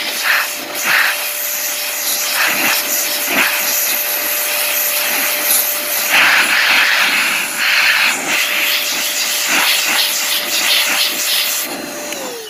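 MetroVac electric air blower running, a steady motor whine under loud rushing air as it blows dust out through a laptop's bottom vents. The rush of air swells and fades as the nozzle moves. Near the end the blower is switched off and its whine starts to fall.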